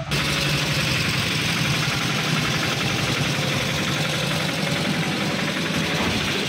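A small motorcycle engine idling steadily with an even, rapid pulse.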